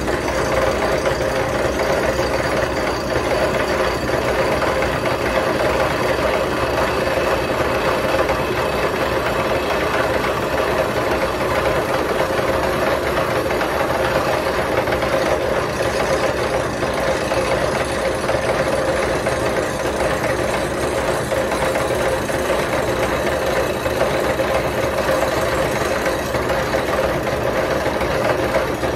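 Milling machine with its cutter planing the flat face of a cast iron exhaust manifold: a steady cutting noise with a constant mid-pitched tone over a fast, even chatter.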